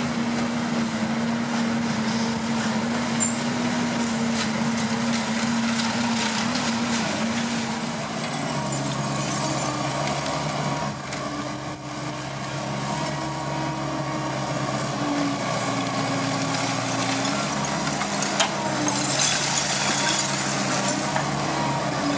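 Terex Fuchs MHL 250E wheeled material handler working, its engine and hydraulics running steadily. The engine note shifts to a lower, different pitch about a third of the way in. There is scattered clatter and a rushing hiss near the end.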